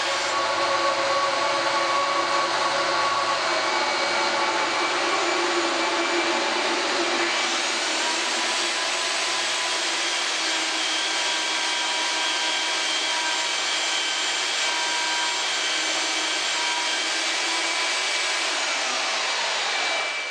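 Shop vacuum dust collector with a cyclone separator, running steadily. About seven seconds in, a machine whine rises sharply; it winds down near the end.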